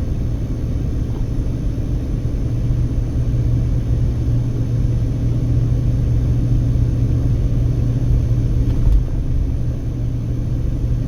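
Steady low rumble of road and engine noise inside a moving car cruising at low speed, with a brief thump about nine seconds in.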